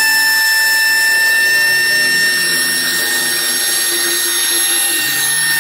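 CNC router running: a steady high spindle whine, under it low stepper-motor tones that jump to a new pitch every fraction of a second as the axes move.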